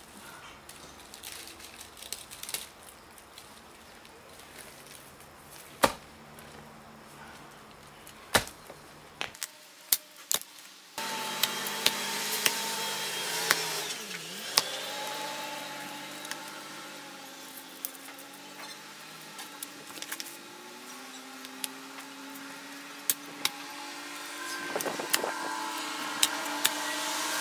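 A hoe digging into stony soil, with sharp knocks and scrapes of the blade as it works loose a hazel sucker's roots. About eleven seconds in, a steady hum with several held, slowly drifting tones comes in suddenly and carries on under the strikes.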